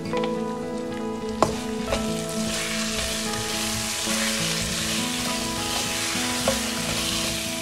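Sliced potatoes and onions sizzling as they fry in oil in a non-stick pan while a spatula stirs them. The spatula knocks against the pan a few times, and the sizzle grows louder about two seconds in as the stirring starts.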